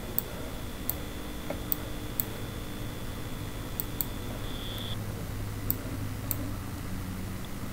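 Computer mouse clicks, about eight short, sharp ones at irregular intervals, over a steady low hum and a faint high whine.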